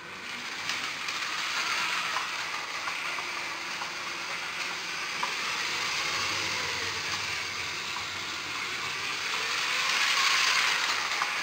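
Lego 9V train (the yellow Lego 4564 freight train) running on plastic 9V track, a steady whirring rattle of its motor and wheels. It grows louder about ten seconds in as the locomotive comes close.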